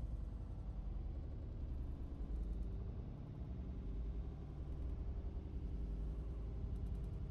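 Steady low rumble inside a moving vehicle's cabin: its engine and tyres running on a wet road.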